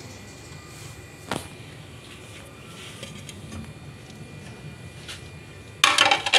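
Chopped vegetables and meat being tipped by hand into an aluminium pressure cooker: faint handling noise with a single click about a second in, then a brief loud clatter of a plate against the metal cooker near the end.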